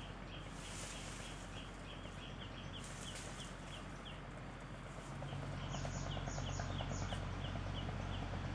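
Birds calling outdoors: a steady run of short, high chirps repeated several times a second, joined about two-thirds of the way in by a quicker series of even higher chirps. A low steady hum rises in level about halfway through.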